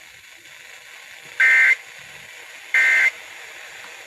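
Emergency Alert System end-of-message data bursts: short, loud two-tone digital warbles repeating about every 1.3 seconds, two of them plus the start of a third at the very end, over a faint steady radio hiss. They mark the end of the alert message.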